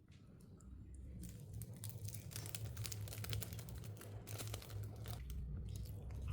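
Crinkling and rustling with many small crackling clicks, like packaging being handled, over a steady low hum.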